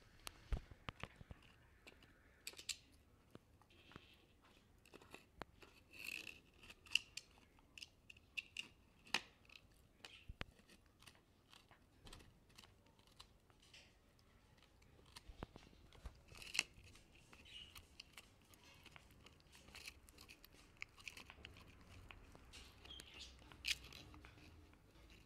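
A schnauzer gnawing a knotted rawhide chew bone: faint, irregular crunching and tearing clicks of teeth working the hard rawhide, coming in spells with short pauses between.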